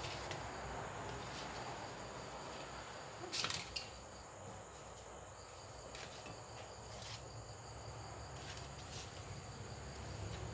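A few light clicks and crackles as crisp deep-fried wontons are picked up by hand and set down on a plate, two sharper ones close together about three and a half seconds in, over a faint steady hiss.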